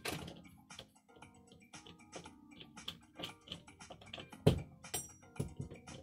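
Small metal clicks and taps of a long screwdriver turning a doorknob's mounting screw out, with a sharper knock about four and a half seconds in.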